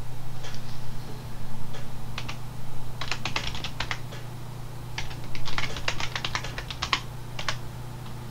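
Typing on a computer keyboard: a few scattered keystrokes, then two quick runs of keys about three seconds in and again about five seconds in, with a last few taps near the end.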